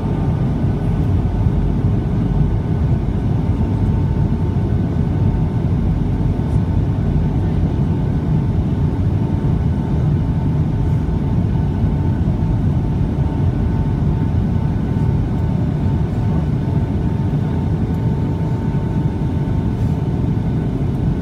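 Steady cabin noise inside a Boeing 757-200 airliner in flight: a constant low rush of engines and airflow, with a few steady hum tones over it.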